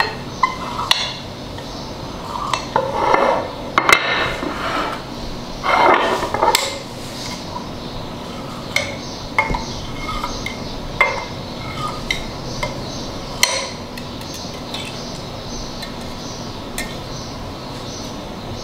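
A knife cutting set jelly in a glass dish, its blade tapping and scraping against the glass in irregular clinks, busiest in the first few seconds and then sparser.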